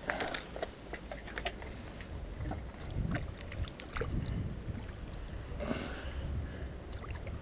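Small waves lapping at the shore, with wind rumbling on the microphone and scattered light clicks and knocks, and a brief rush of water about six seconds in.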